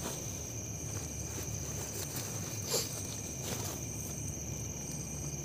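Night insects, likely crickets, trilling in one steady high-pitched tone, with a single faint click a little before the middle.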